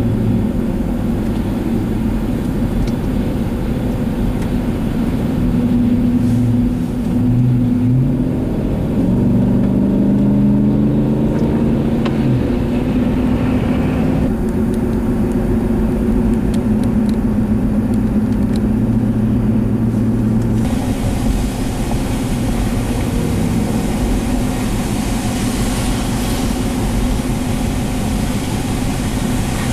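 A car's engine and road noise while driving, engine pitch rising as it speeds up about nine to twelve seconds in. The sound changes abruptly twice, at about fourteen and twenty seconds.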